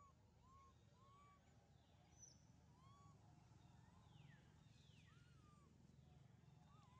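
Near silence with faint animal calls: short rising-and-falling calls about once a second and a few downward-sliding whistles, over a low steady background hum.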